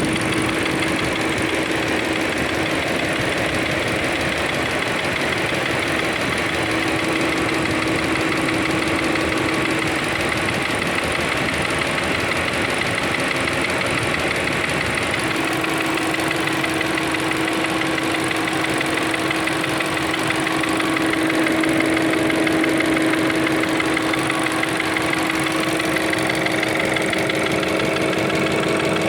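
Volkswagen-group 1.4 TSI four-cylinder turbocharged petrol engine idling, with a steady whine over the running that fades away for a few seconds around the middle and then comes back. This is the noise being recorded as a suspected fault.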